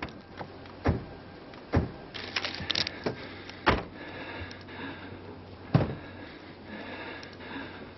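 Several sharp thuds a second or two apart, with a quick run of clicks between the second and third, over a steady low background.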